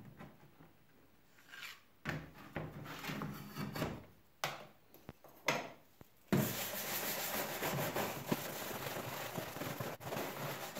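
A stiff hand brush scrubbing grime off a carbide-tipped circular saw blade soaked in grill cleaner. There are a few separate strokes at first, then steady, fast scrubbing from about six seconds in.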